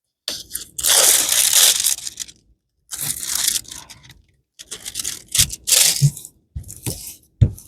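Diamond painting canvas and its plastic packaging rustling and crinkling as they are unrolled and handled, in several separate spells with short silences between, the longest starting just after the beginning.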